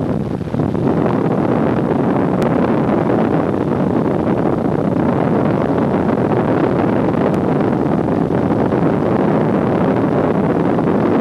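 Steady airplane cabin noise: engines and rushing air as a continuous loud roar, dipping briefly just after the start.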